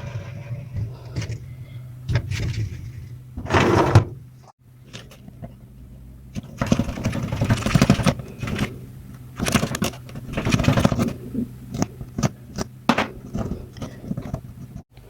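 Handling noises: clicks, knocks and two longer bursts of scraping or rubbing, over a steady low hum.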